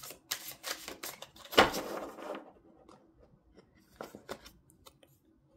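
A deck of tarot cards being shuffled by hand: a quick run of papery card flicks for about the first two seconds, then a few faint clicks.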